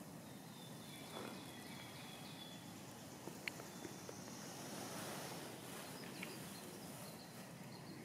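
Quiet forest ambience: a faint steady hiss of open air with a few short, high bird calls, and two sharp clicks about three and a half and six seconds in.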